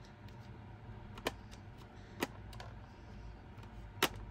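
Plastic lid of an ALBA CD268 personal CD player being worked open and pressed shut by hand, giving a few sharp clicks about a second apart, the loudest about four seconds in.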